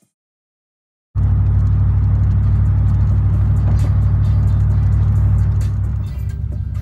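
About a second of dead silence, then the steady low rumble of a car on the road, heard from inside the cabin, easing off a little near the end.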